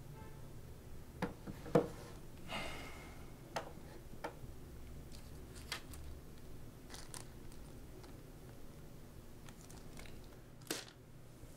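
Scattered small clicks and knocks of objects being put down and handled on a bedside table, with a crinkle of a small plastic bag near the end.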